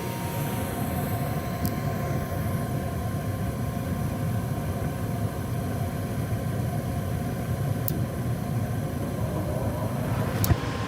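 Gas furnace running steadily, its draft inducer and blower making an even low hum with a faint steady whine. A few brief clicks, the sharpest near the end. No rattle stands out; the technician thinks this unit is not the one making the reported noise.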